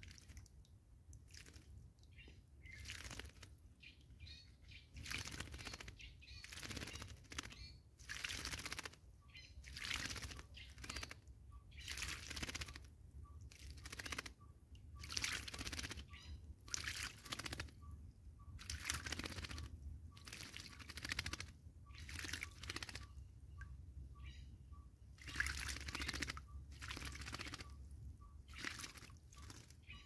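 A Cape starling bathing in shallow water, beating its wings to throw up splashes in quick bouts, about one every second or two, with short pauses between.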